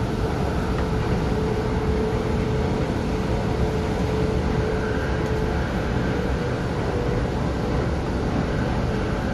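MTR K-Train (Tung Chung line electric multiple unit) running between stations, heard from inside the carriage: a steady rumble of the train under way, with a steady whine that fades out about halfway through.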